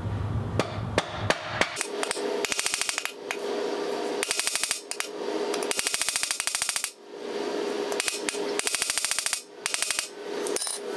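Hammer striking nails on the cast-iron bed of an old sewing machine used as an anvil. A few separate blows come first, then several runs of rapid light taps with short pauses between them, as the nails are worked into shape.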